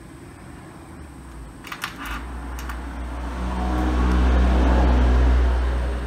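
A few light clicks, then a low whirring rumble that swells for a couple of seconds and fades near the end, like a laptop cooling fan spinning up.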